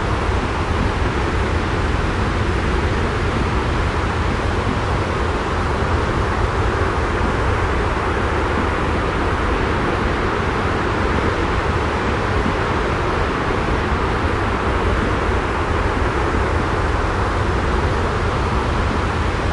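The sea as a steady, unbroken rushing noise with a strong low rumble, holding level without the rise and fall of single waves.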